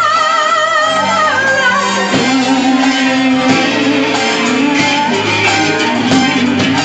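Band playing a pop-rock song with guitar and bass; a long held vibrato note dies away about a second and a half in, and the guitar carries on.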